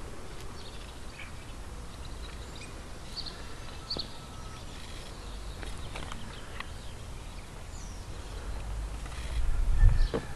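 Street ambience: a steady low rumble with scattered short bird chirps. Near the end there is a loud low buffeting on the microphone.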